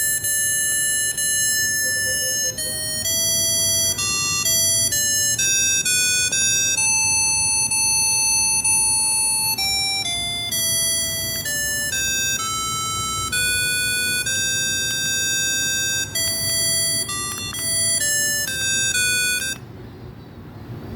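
Q-Mobile ME114 phone ringtone: a simple electronic melody of clear beeping notes, one after another. It breaks off about a second and a half before the end, and the next tune starts right at the close.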